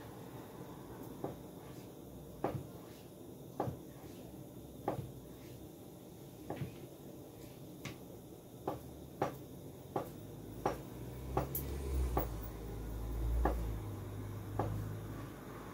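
Knife chopping food on a cutting board: about sixteen single sharp knocks, spaced about a second apart at first and coming about twice a second from just past halfway. A low rumble sits under the chopping about three-quarters of the way through.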